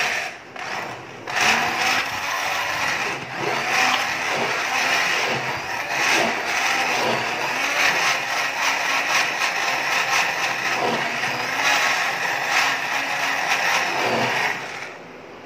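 Electric hand blender running in a glass jug, puréeing soft-cooked rice with milk and banana; the motor's whine wavers up and down in pitch as the blade works through the thick mixture. It dips briefly about a second in and cuts off near the end.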